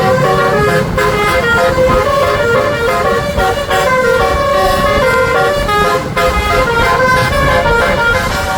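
A bus's 'basuri' telolet musical air horn playing a fast tune, several horn notes sounding together and changing pitch every fraction of a second, over a low rumble.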